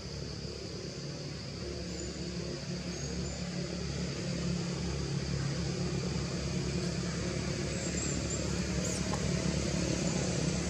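A low, steady engine hum that slowly grows louder, with a few faint high bird chirps.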